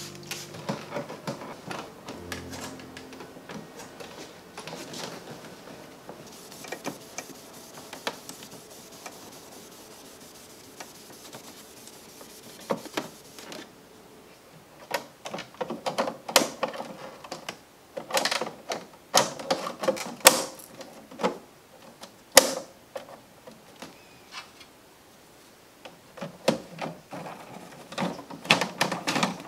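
Plastic clicks, knocks and rubbing as the front cover and mesh filter of a small white plastic appliance are unclipped and handled. The clicks come in irregular clusters through the second half, after several seconds of soft hiss.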